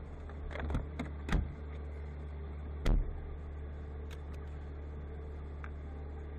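Truck engine idling steadily, heard from inside the cab, with a few light knocks early and one loud thump about three seconds in.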